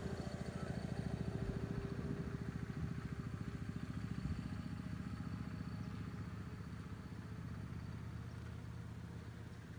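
Low, steady rumble of an engine running, with an even throb, slowly getting quieter.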